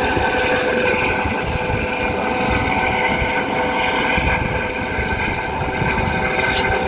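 Rescue helicopter running: a steady turbine whine with several held tones over the rough noise of the rotor.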